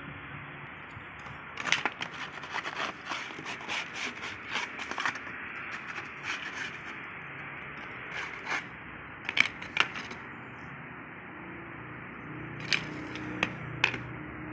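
Metal mould strips clinking and scraping against glass tile moulds as they are handled and laid in place: scattered sharp clicks, busiest in the first few seconds, with a few sharper clinks near the end.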